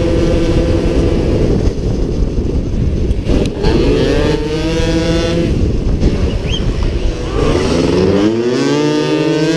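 50cc racing scooter engine heard from on board, running at high revs; about three seconds in and again near eight seconds the pitch drops as the bike slows, then climbs back up as it accelerates.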